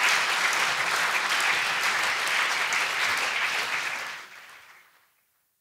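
Audience applauding, a dense steady patter of many hands clapping that fades out about four seconds in until it is gone.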